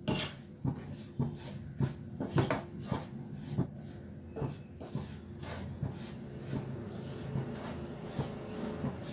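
Wooden spatula scraping and stirring semolina as it dry-roasts in a non-stick kadhai. It makes repeated gritty strokes about two a second, strongest in the first few seconds, over a steady low hum.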